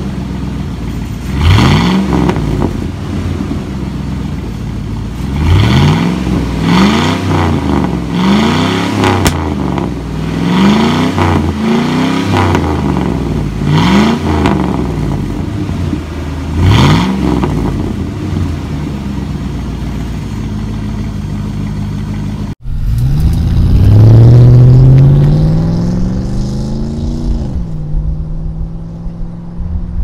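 1999 Chevrolet Silverado's 5.3L LM7 V8 through straight exhaust tubing in place of the muffler, revved in about nine quick throttle blips over a rumbling idle, each rising and falling in pitch. After a cut about three-quarters of the way in, the same truck accelerates hard past, one long rising pitch that then falls away.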